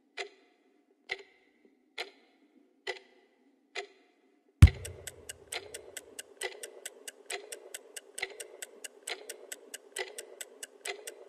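Wall clock ticking about once a second. About four and a half seconds in a single heavy thump lands, and after it the once-a-second tick runs on with quicker, fainter ticks between the beats over a steady hiss, building a rhythm out of the ticking.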